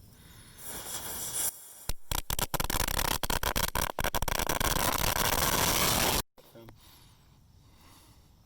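String of firecrackers going off: a short hiss from the burning fuse, then about four seconds of rapid cracking bangs that stop abruptly.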